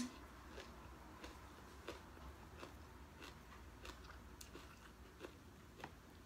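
Faint chewing: soft, irregular mouth clicks about every half second to a second over a low steady hum, a person eating sticky rice and food with her mouth close to the microphone.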